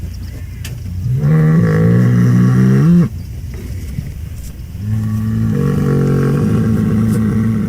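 A cow mooing twice over a low background rumble. The first moo lasts about two seconds and rises in pitch at its end. The second, longer moo starts about five seconds in and holds a steady pitch.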